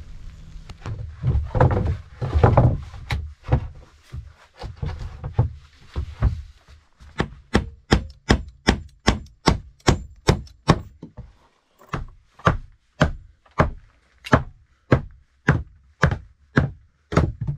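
Hammer striking wooden planks: a few irregular heavier knocks and thuds, then a steady run of sharp blows at about three a second, slowing to about two a second in the second half.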